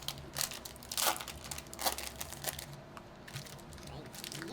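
Foil wrapper of a Topps baseball card pack being torn open and crinkled, a few sharp crackling rustles in the first half, then softer rustling.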